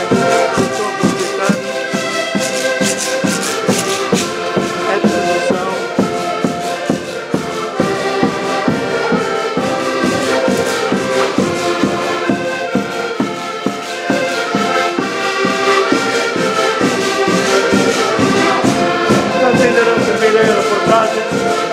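An accordion ensemble playing a tune together over a steady beat.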